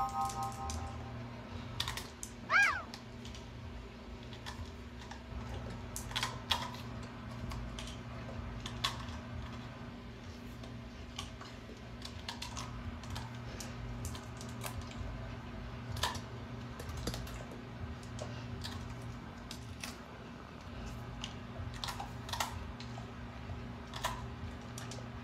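A dog crunching and chewing pieces of raw celery picked up off a hard floor: irregular crisp crunches scattered throughout. About two and a half seconds in, a short pitched tone swoops up and back down, over a steady low hum.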